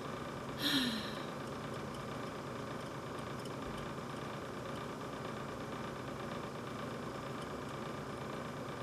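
Brand new GE refrigerator running with a steady hum and a few steady tones. Under a second in comes a brief sound with a short falling pitch.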